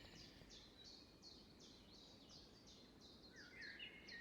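Faint small-bird chirping: a steady series of short, high, downward-sliding chirps about three a second, with a second, lower chirping joining about three seconds in.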